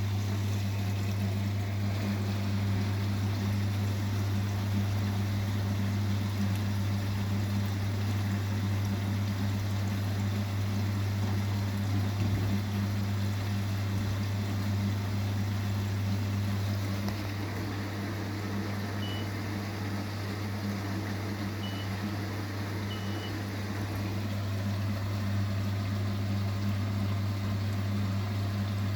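Vestel CMI 97302 washing machine running through a wash cycle: a steady low hum over an even wash of noise, easing off slightly partway through.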